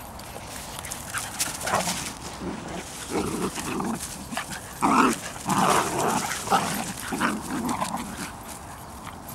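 Bedlington Terriers, a mother and her puppies, vocalising during rough play: a run of short yips and whimpers, loudest about halfway through.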